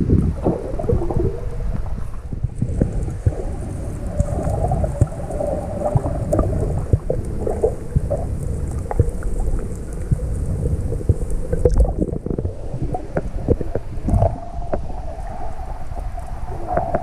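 Muffled underwater noise through a submerged GoPro Hero 5 Black: a steady low wash of water, with many scattered clicks and crackles throughout.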